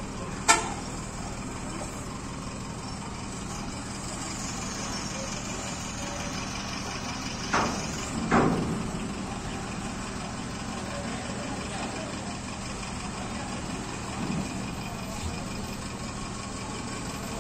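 Steady hum of idling truck and bus engines as vehicles are loaded onto a ferry deck. A sharp knock comes about half a second in, and two louder knocks come close together about halfway through.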